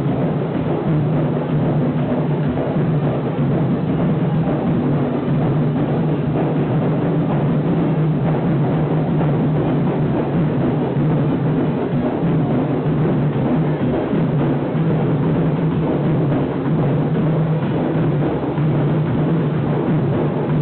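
Candombe drumming: a comparsa's tambores (chico, repique and piano drums) played together in a dense, steady, unbroken rhythm.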